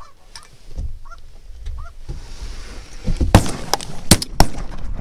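Geese honking, four short calls in the first two seconds, then from about three seconds in a rapid volley of shotgun blasts, several shots in quick succession.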